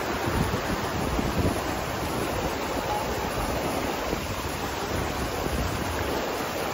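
Fast, shallow mountain river rushing over stones beneath a wooden plank footbridge, a steady, even noise of running water, with some wind on the microphone.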